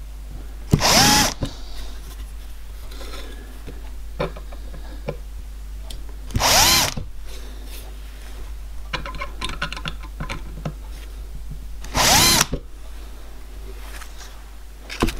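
Hand-held power drill with a small bit run in three short bursts about five seconds apart, each whining up in pitch as it starts: spotting punched hole positions in a marked-out metal plate before drilling them on the drilling machine. Light clicks and knocks come between the bursts.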